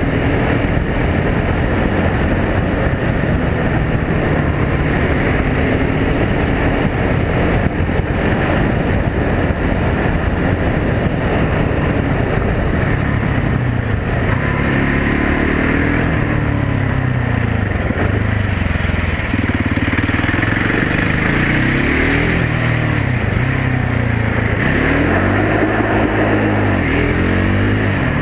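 Can-Am DS 450 quad's single-cylinder four-stroke engine running under way, fairly steady at first, then its revs rising and falling several times from about halfway through.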